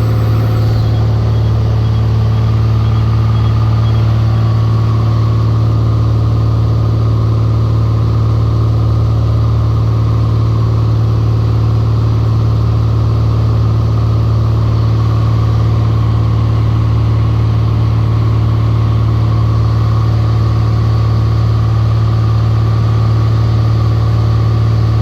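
Cessna 182 RG's six-cylinder Lycoming piston engine and propeller running at high power during departure, a loud, steady drone that holds unchanged.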